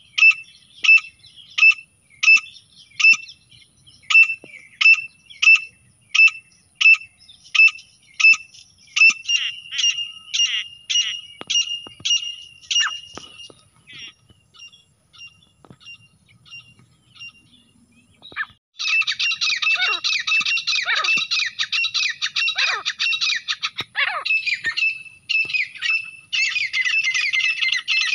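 Grey francolin calls: sharp, evenly spaced calls about twice a second that crowd together and then thin out and fade. About two-thirds in, a loud, dense run of rapid overlapping calls begins, breaking off briefly and resuming near the end.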